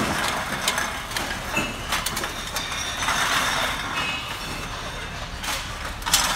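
Empty aluminium drink cans tumbling out of a plastic bag onto a metal counter and being handled: an irregular run of clattering clinks and knocks, with brief metallic ringing now and then.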